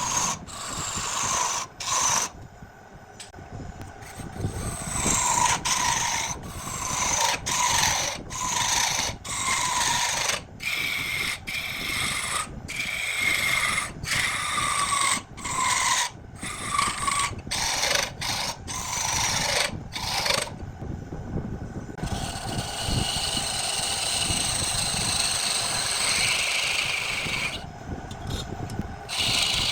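Wood turning on a lathe: a tool cuts the spinning wood in many short chopped-up stretches, each with a falling whine. About 22 seconds in comes a longer, steadier rubbing sound.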